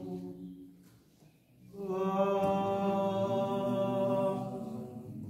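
Men's voices singing without accompaniment: a phrase fades away, a brief pause, then one long held note from about two seconds in that trails off near the end.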